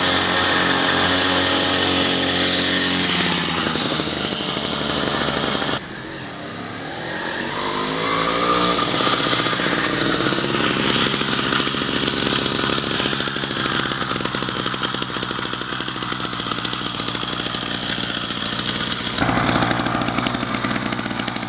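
66cc two-stroke bicycle engine kit running and being revved. The pitch eases down a few seconds in, the level drops suddenly around six seconds, then the pitch climbs over a few seconds and holds high.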